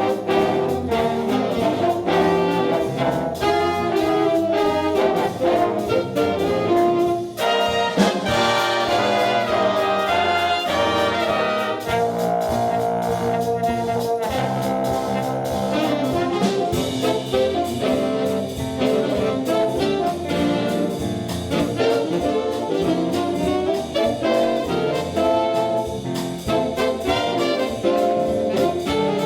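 Brass ensemble music with trombones and trumpets, playing continuously in a jazzy style.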